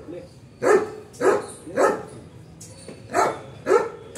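A dog barking repeatedly: five short barks about half a second apart, with a pause of about a second in the middle.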